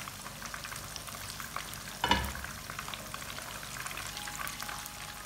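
Besan-battered fish pieces sizzling and crackling in hot oil for their second, crisping fry, with one louder knock about two seconds in.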